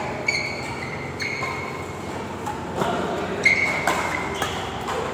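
Badminton rackets striking a shuttlecock in a rally, several sharp hits a second or so apart. In between, shoes squeak on the court mat in short high squeals.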